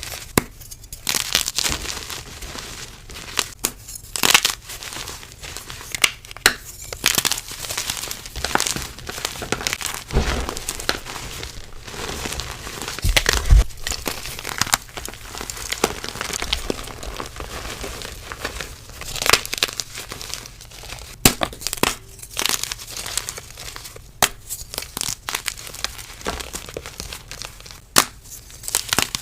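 Soft reformed gym chalk being crushed and crumbled: a continuous dry, gritty crumbling with louder crunches every few seconds.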